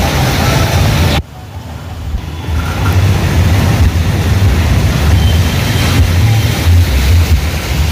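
Heavy rain on a flooded street, with a loud low rumble under the hiss of the rain. The sound drops sharply just after a second in, then builds back up over the next couple of seconds.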